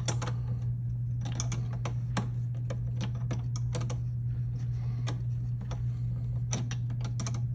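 Metal wrenches clicking and clinking on the nut and bolt of a golf car motor controller's terminal as the nut is worked off, in irregular sharp clicks. A steady low hum runs underneath.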